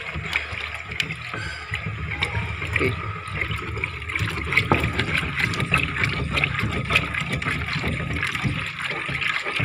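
Epoxy paint mixed with hardener and thinner being stirred with a stick in a metal tin: steady sloshing and swirling of the thin liquid, with many small knocks and scrapes of the stick against the tin, as the three parts are blended evenly.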